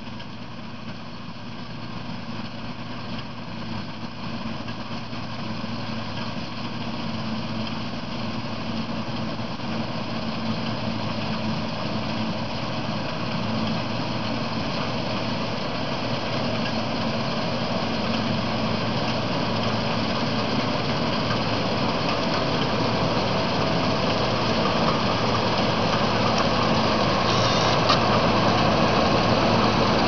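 John Deere 965 combine harvester running as it harvests, its engine and threshing machinery making a steady drone with a low hum. It grows steadily louder as the combine draws near.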